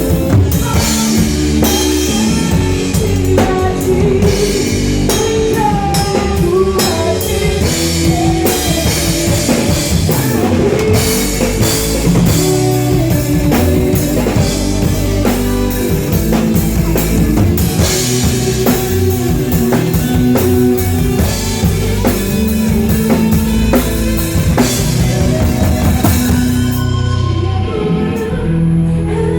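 Live rock-style worship band playing: drum kit with cymbals, guitar and bass under a melody line. Near the end the drums and cymbals drop out, leaving the guitar and melody.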